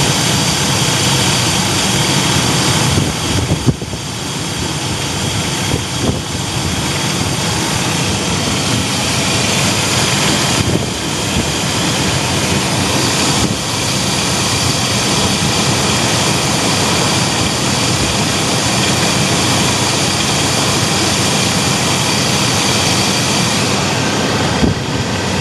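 Chevy Astro van engine idling steadily with the hood open, a dense, loud running noise. The engine is left idling while head gasket sealer is poured slowly into the radiator.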